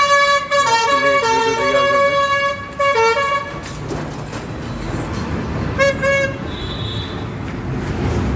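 A vehicle's musical horn plays a tune of stepped, held notes for about three and a half seconds. Then comes steady street-traffic rumble, with a brief horn toot about six seconds in.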